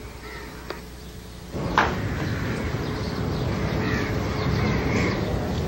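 Quiet room tone, then about a second and a half in a sudden change to louder outdoor ambience with a sharp click, and crows cawing in the background.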